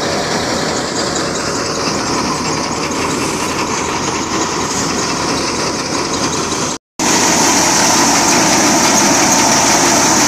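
Tractor-driven wheat thresher running: a steady, dense engine-and-machine din that cuts out for a moment about seven seconds in, then carries on a little louder with a steady high hiss.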